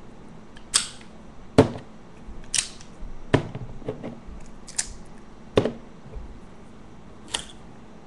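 A series of about seven sharp metallic clicks and snaps, irregularly spaced, from a manual pick gun being triggered and laminated-steel Master padlocks being handled on a desk.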